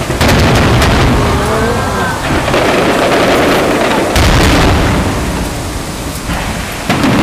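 Aerial fireworks shells bursting in quick succession: a dense run of booms and crackle over a continuous rumble. The sharpest bursts come near the start and again about four seconds in.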